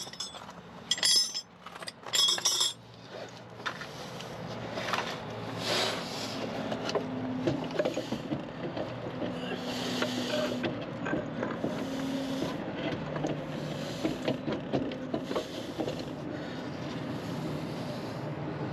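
Metal parts and tools clinking several times in quick succession while a steering knuckle is handled and fitted back onto the axle. A steady low rumble follows for the rest of the time.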